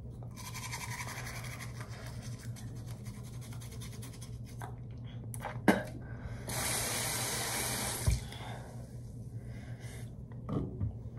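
Bathroom sink tap running water into the basin during tooth brushing, with a louder rush of water lasting about a second and a half just past the middle. There are a couple of sharp knocks around the sink.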